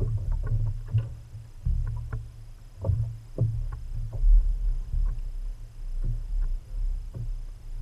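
Wind buffeting the microphone in a low, uneven rumble, with light irregular knocks of water lapping against a boat hull.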